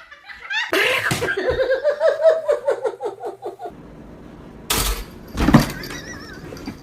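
People laughing hard in bursts for a few seconds, then two sharp thumps about a second apart.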